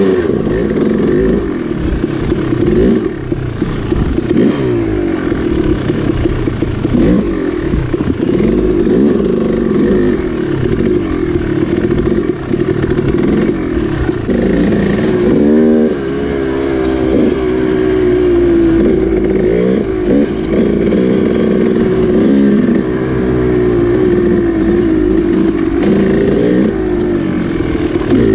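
KTM dirt bike engine under way, its pitch rising and falling constantly with throttle and gear changes, with a few brief drops in revs about halfway through.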